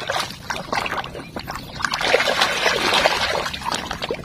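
Muddy water splashing and sloshing as a toy dump truck is swished through it to wash off the mud, with a louder stretch about two seconds in.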